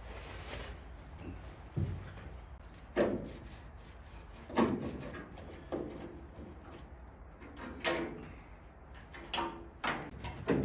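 A series of irregular knocks and clunks, about eight of them, each short with a brief ring after it, the kind made by handling parts or tools in a workshop.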